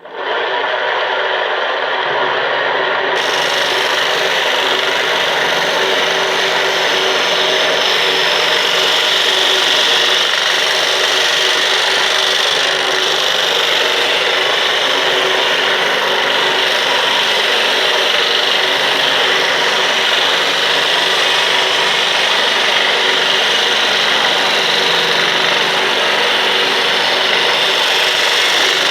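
Homemade motor-driven sanding drum running and sanding wood: a steady rasping with a faint hum underneath, starting abruptly.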